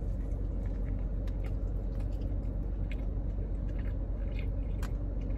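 A man biting into a cheeseburger and chewing it with his mouth closed, faint wet clicks coming through now and then, over a steady low hum.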